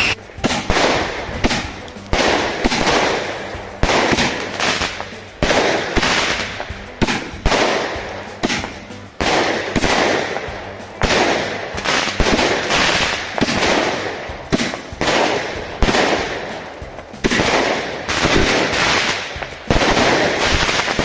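A firework barrage firing: a steady run of loud bangs, about one or two a second, each one fading out over roughly half a second before the next.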